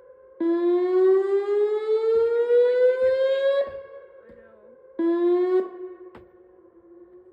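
Whelen WPS 2905 electronic outdoor warning siren sounding a rising tone. It climbs steadily in pitch for about three seconds and cuts off, then gives a short half-second rising burst a little later. A fainter steady tone lingers after each cut-off.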